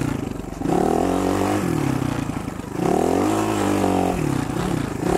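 Kayo K1 250 enduro motorcycle's single-cylinder four-stroke engine revving up and dropping back several times as the bike is ridden and slid on dirt.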